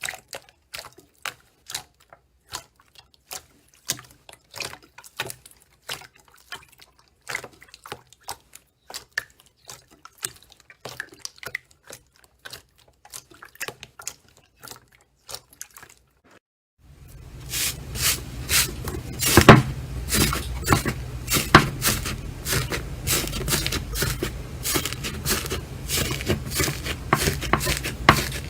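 Slime being squeezed and poked by hand, a rapid run of small wet clicks and pops. About two-thirds of the way through, a steady low background noise comes in suddenly and the clicks grow louder and denser.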